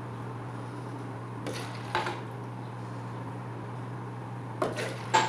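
Empty drinking glasses knocking and being set down on a stone countertop. There is one clink with a short ring about two seconds in, then two more close together near the end, over a steady low hum.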